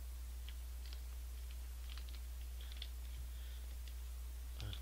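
Faint crackling and clicking of a plastic Seolleim ice-cream pouch being squeezed and handled, with a slightly louder crackle near the end, over a steady low electrical hum.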